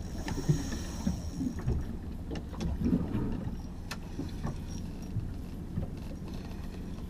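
Small motorboat at sea: water and wind noise around the hull over a steady low hum, with a few sharp knocks.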